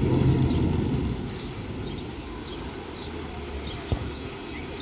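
Boat's outboard motor running in reverse as the boat backs off its trailer, loud for about the first second, then throttled back to a lower rumble.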